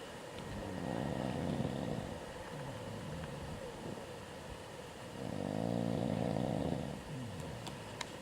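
A person asleep in a tent snoring: two long snores about four seconds apart, the second one louder, with softer breathing sounds between them.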